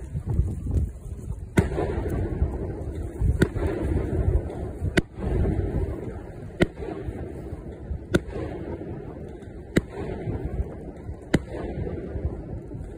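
Fireworks bursting: sharp cracks about every second and a half, over continuous low rumbling booms.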